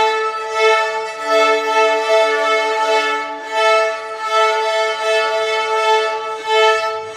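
Violin playing one note held at the same pitch across repeated bow strokes, swelling and easing about once a second, with a lower note sounding alongside it for a couple of seconds about a second in.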